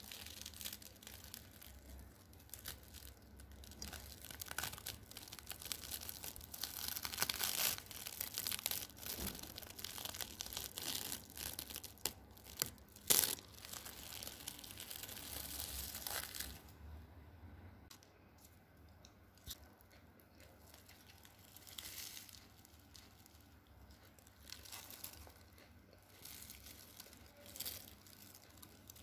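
Scissors cutting through a baked puff pastry roll: the flaky crust crackles and crunches in many small snaps, with one sharp snap about halfway through. After that the crackling turns fainter and more scattered.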